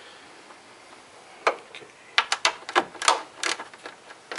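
Ratchet wrench clicking as it turns a bolt holding the new radiator in place. The sharp clicks start about a second and a half in and come in small groups, several a second.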